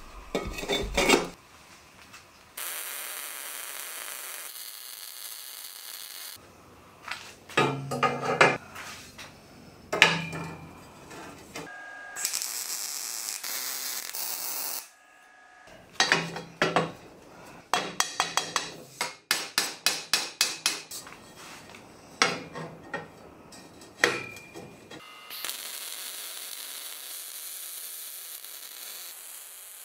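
MIG welding on square steel tubing: several stretches of steady crackling arc hiss. Between them come runs of short, sharp bursts and knocks.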